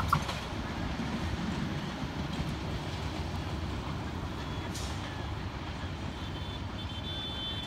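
Kurigram Express intercity train running away down the line, its low rumble gradually fading. A single sharp knock sounds right at the start, and a faint high tone comes in near the end.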